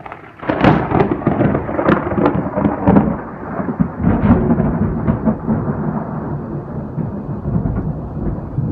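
A loud thunderclap breaks about half a second in, crackling sharply for the first few seconds, then rolls on as a long rumble that slowly fades.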